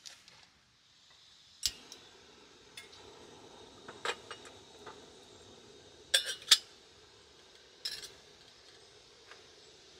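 SOTO ST-310 single gas burner lighting with one sharp igniter click, then burning with a steady hiss. Metal clinks and clanks come several times as a stainless drip kettle is handled and set onto the burner's wire pot supports.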